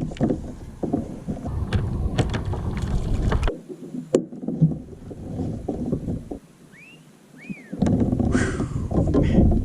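Kayak on the move: water sloshing and paddle knocks against the hull, with wind buffeting the microphone. The noise drops away for about a second and a half near the two-thirds mark, when two short high chirps sound, then resumes.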